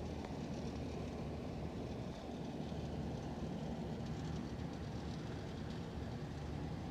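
Steady low hum and rumble with no distinct events, like distant machinery or traffic.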